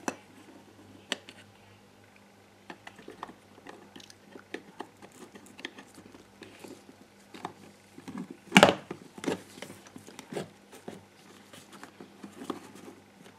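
Small plastic clicks and light crackling from hands handling a GHD hair straightener's plastic arm and housing while threading a wire through it, with one loud knock about eight and a half seconds in.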